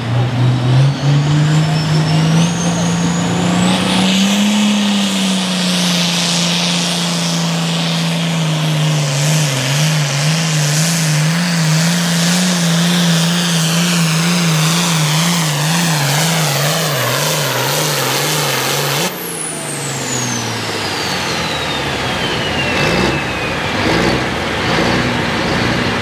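Turbocharged International Harvester diesel pulling tractor (Altered Farm class, 466 cubic inch with a Borg Warner S300 turbo) making a full pull against the sled. The engine revs up over the first few seconds as the turbo's whistle climbs, then holds at high revs with a regular wavering in pitch. About three-quarters of the way through it is suddenly throttled off, and the turbo whistle falls steadily as it spools down.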